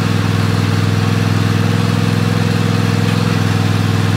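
Riding lawn mower engine running at a steady speed, with an even low engine note that neither rises nor falls.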